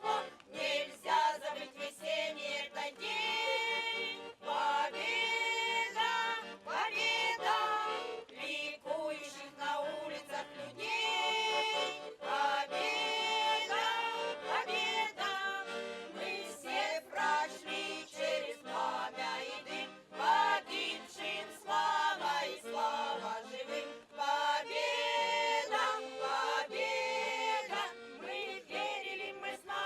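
Choir singing a song.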